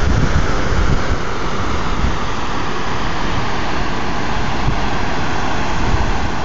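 Mountain creek rushing over rocks, a steady whitewater noise, with wind gusting on the microphone that eases about a second in.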